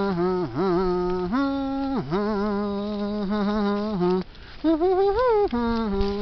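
A voice humming a slow tune: long held notes that dip and slide between pitches, with a short pause about four seconds in.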